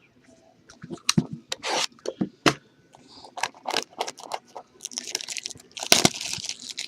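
Packaging on a box of football trading cards being torn and handled open: a run of sharp clicks and scrapes, then a denser crinkling rustle from about five seconds in.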